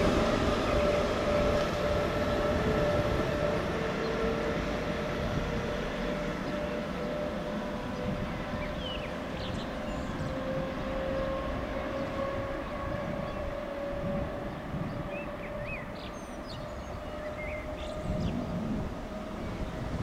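ÖBB class 1144 electric locomotive pulling away with its train: a steady two-note electric whine, the lower note slowly rising, with running noise that fades as it recedes. Birds chirp faintly in the second half.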